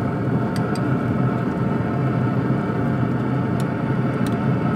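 Pellet grill's fan running with a steady whir and hum, with a few light clicks of a metal spoon against a small glass bowl as sauce is spooned out.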